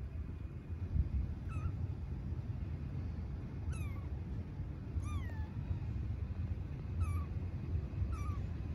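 Young kitten meowing for its mother: five short, high-pitched cries that fall in pitch, spaced one to two seconds apart, the middle one longest. A steady low rumble runs underneath.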